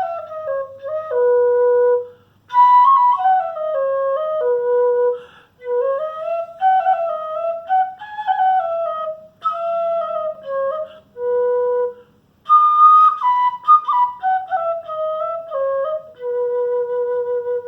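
Mbyá Guaraní mimby'i, a small takuapí-cane flute, playing a slow melody in short descending phrases. Each phrase ends on a held low note, with brief breaks for breath between phrases.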